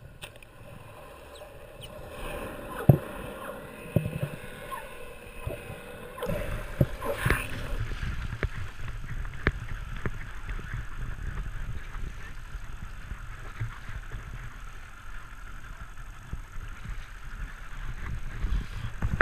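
Muffled underwater sound with a few scattered clicks, then about six seconds in, the steady low rumble and rush of an inflatable boat running over choppy sea, with wind and water splashing.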